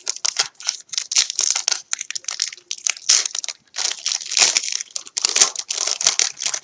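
Foil wrapper of a trading-card pack crinkling and crackling as hands work it open: a dense, irregular crackle.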